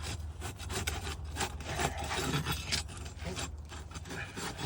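Pry bar scraping under asphalt shingles, breaking their sealant bond to unseal them: irregular rasping and crackling strokes over a steady low hum.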